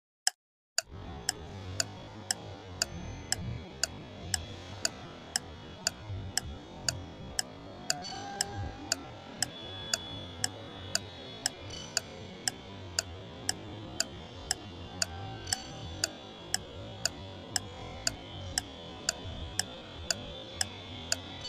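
A clock ticking steadily, about two ticks a second. About a second in, a low background hum and hiss comes in under it.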